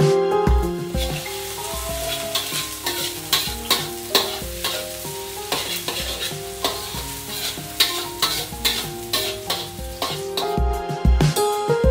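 Steamed-bun filling stir-frying in a pan: a steady sizzle, with a spatula scraping and stirring in frequent, irregular strokes.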